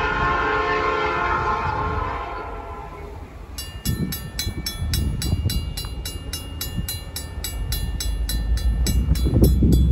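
A locomotive air horn sounds in the distance and trails off over the first three seconds. Then the crossing's Safetran mechanical bell starts ringing, about three to four strokes a second, as the crossing activates for the approaching train, with a low rumble building under it toward the end.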